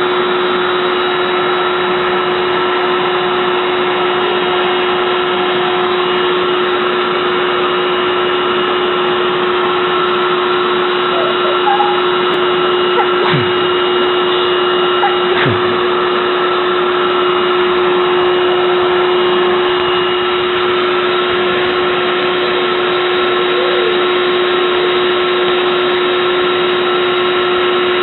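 Electric vacuum cleaner running steadily: a constant motor whine with a strong low hum tone and fainter higher tones, unchanging in level.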